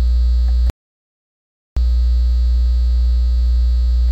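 Loud, steady electrical mains hum on the recording. It cuts out to complete silence for about a second near the start, then comes back unchanged.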